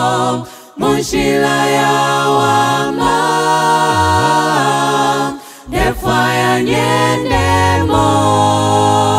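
A six-voice mixed male and female a cappella gospel group singing in close harmony into microphones, holding long chords. The singing breaks off briefly twice between phrases: about half a second in and again about five and a half seconds in.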